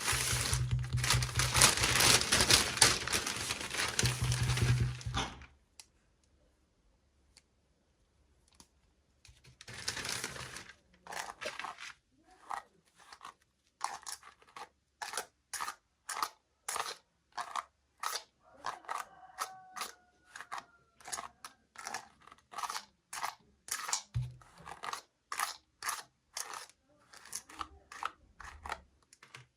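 Plastic packaging crinkling and tearing for about five seconds, with another short burst of crinkling a few seconds later. Then comes a long run of sharp clicks or taps, about two a second.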